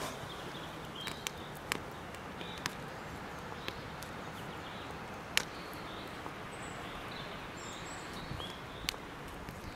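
Wood campfire crackling, with a sharp pop every second or so over a steady outdoor hiss, and faint bird chirps in the distance.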